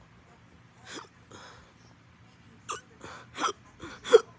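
A person hiccuping hard after eating. There are about four sharp hiccups with quick breaths between them. They come closer together near the end, and the last is the loudest.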